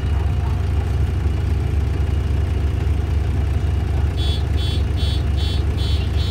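City bus's diesel engine running with a steady low rumble, heard from inside the passenger cabin. About four seconds in, a rapid high electronic warning beep starts, about two and a half beeps a second.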